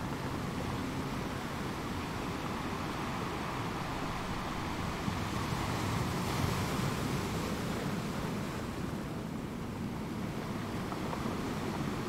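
Steady outdoor ambient noise: an even hiss over a low rumble, swelling a little about six seconds in and easing off again near the end.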